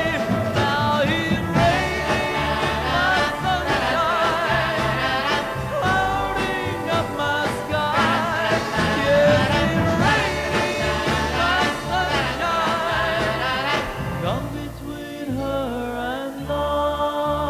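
Music: a pop ballad recording in a passage without sung words, a wavering melody over a steady bass line, the backing thinning out about fourteen seconds in.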